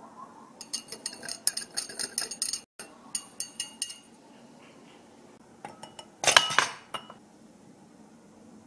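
A spoon stirring instant coffee in a small glass pitcher, clinking quickly against the glass for about three seconds. A short, louder burst of clinks follows about six seconds in.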